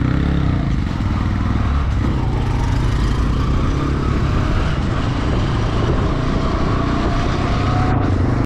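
Motorcycle engine running at road speed, heard from the pillion seat with steady wind rushing over the microphone.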